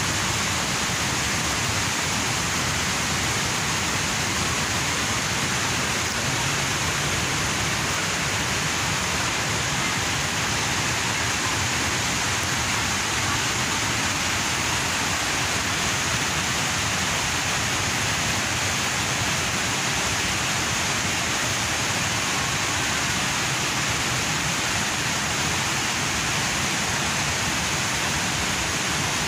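Steady rushing of falling water, an even roar with a high hiss over it and no change in level.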